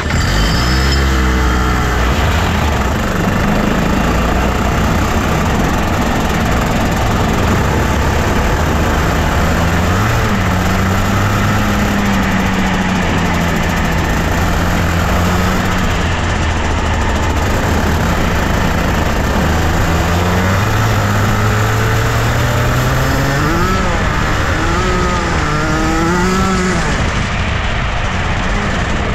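Junior Rotax kart's 125cc two-stroke engine running on track, loud and continuous. Its pitch holds steadily for long stretches, then rises and falls several times near the end as the throttle comes off and back on.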